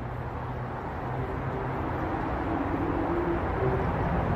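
Steady city road traffic: a continuous wash of tyre and engine noise from many cars, with a low engine drone in it, growing gradually louder.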